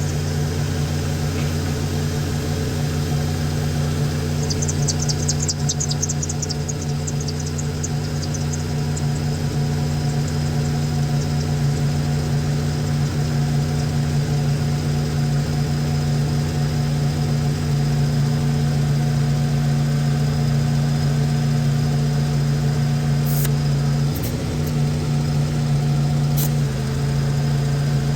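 Jeep engine idling with its belt-driven factory AC compressor, converted to onboard air, running as it pumps air into a tire. A steady hum that wavers briefly near the end.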